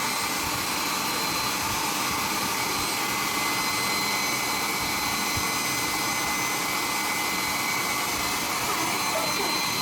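Handheld hair dryer blowing steadily: an even rush of air with a steady high motor whine.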